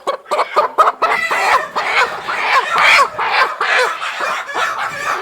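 A crowded flock of young laying hens clucking and calling, many short calls overlapping without a break.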